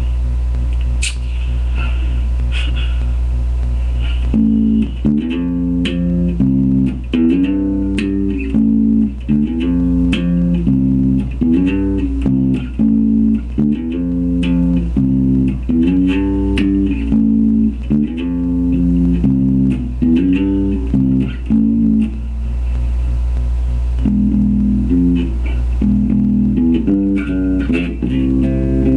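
Electric bass guitar playing a repeating riff of plucked notes over a steady low amplifier hum; the riff starts about four seconds in.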